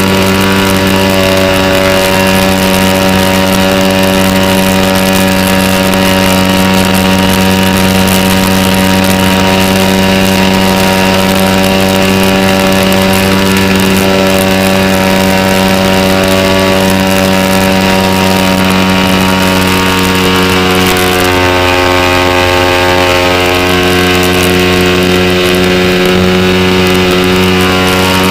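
Sig Kadet Senior RC model airplane's engine running steadily in flight, heard close-up from on the airframe. Its pitch shifts slightly about 21 seconds in.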